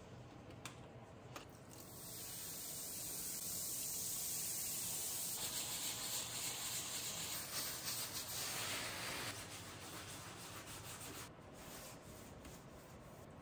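Steady, rasping hiss from a glass-ceramic cooktop coated with baking soda and foaming cleaner as it is worked. The hiss comes up about two seconds in and weakens after about nine seconds, with a few light clicks before it.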